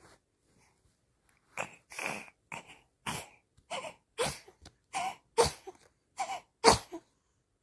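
An 80-day-old baby sneezing in a rapid run of about ten short, sharp bursts, roughly two a second, the last few the loudest.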